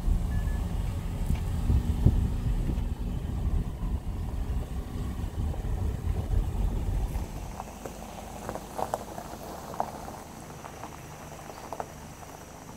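Wind buffeting the microphone outdoors: a heavy, uneven low rumble for about seven seconds, then easing off to a quieter hiss with a few faint ticks.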